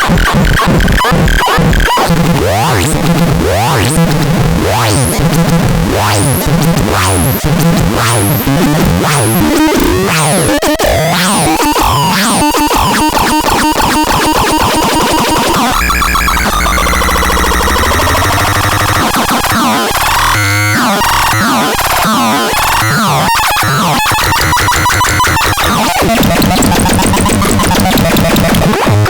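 DAZAX synthesizer playing a noisy, glitchy electronic pattern: a pulsing bass sequence under a run of quick rising chirps. About halfway through it changes to a low drone with falling sweeps.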